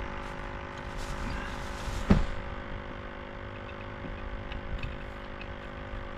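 A single sharp knock about two seconds in as the propped-up camera topples over, after which the sound turns duller. Under it runs a steady hum made of several fixed tones.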